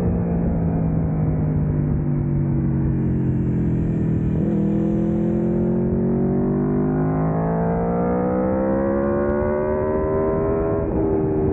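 Aprilia V4 sport-bike engine heard onboard at track speed: revs falling as the bike slows, a quick jump in revs about four seconds in from a downshift, then a long steady climb under hard acceleration, cut by an upshift near the end.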